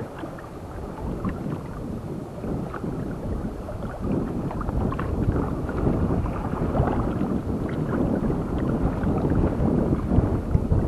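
Wind buffeting the microphone and water splashing against the hull of a small fishing kayak, a rough steady rush that grows louder about four seconds in.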